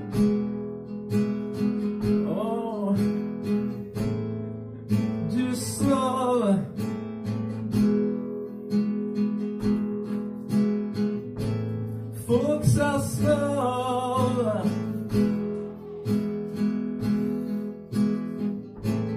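Acoustic guitar strumming a steady chord accompaniment in an instrumental break of a song. A few short wordless sung phrases rise over it, about two, six and thirteen seconds in.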